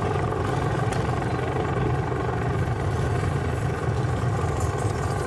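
Rat-rod hot rod's engine idling steadily as the car rolls past at walking pace.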